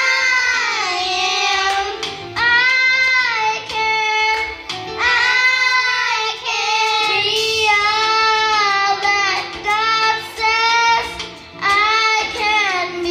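A small group of young girls singing together into microphones, amplified through a sound system, in sung phrases separated by short breaks for breath.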